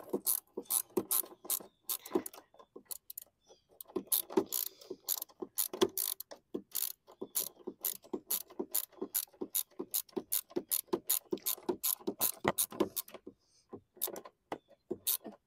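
Ratchet wrench clicking in quick runs of several clicks a second, tightening screws on a lawn mower, with a short pause about three and a half seconds in and another near the end.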